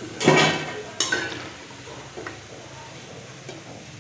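Pakoras deep-frying in oil in a metal kadhai, a steady sizzle. A metal skimmer knocks twice against the pan, about a second apart, each knock ringing briefly; these are the loudest sounds.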